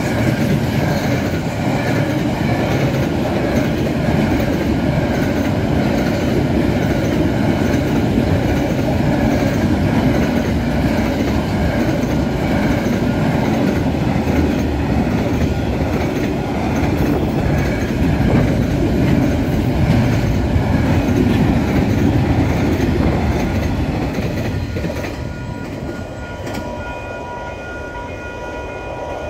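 Container wagons of a freight train rolling past at speed, wheels clattering over the rails. About 25 seconds in the noise fades as the train clears, leaving a few steady high ringing tones.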